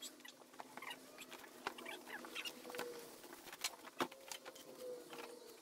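Faint scratching, rustling and small clicks of a cardboard box and its packing being handled, with a sharper click about four seconds in.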